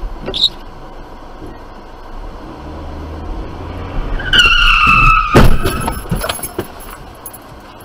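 Car tyres squealing for about a second, gently falling in pitch, then cut off by a loud thump.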